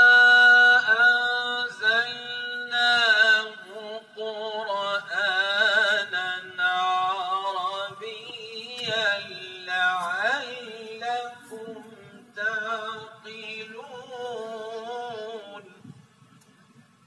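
A male reciter chanting the Quran in the melodic tajweed style. He opens on a long held note, then sings ornamented, wavering phrases with short pauses between them, and stops about sixteen seconds in.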